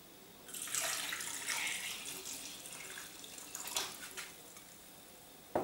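Water poured from a ceramic pitcher into a stainless steel saucepan of cubed potatoes. The pour starts about half a second in and thins out over the next three seconds.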